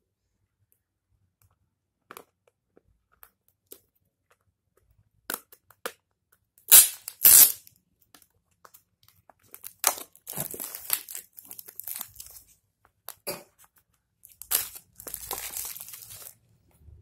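Plastic packaging on a phone box crinkling and tearing as a seal sticker is peeled and clear plastic film is pulled off. There are a few light clicks, two sharp tears about seven seconds in, then longer stretches of crinkling.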